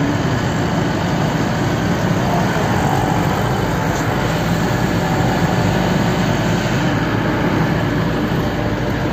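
Eicher truck's diesel engine running and road noise heard from inside the cab while driving, a loud steady drone.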